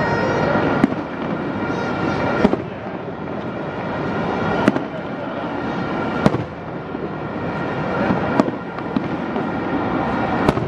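Fireworks display: a sharp bang about every two seconds over a continuous dense din of bursts.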